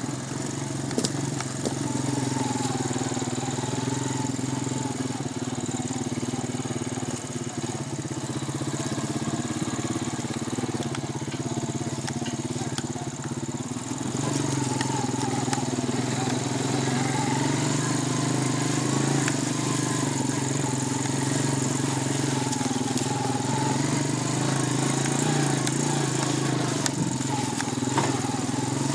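ATV engine running steadily under way, a little louder from about halfway through, with a few sharp knocks.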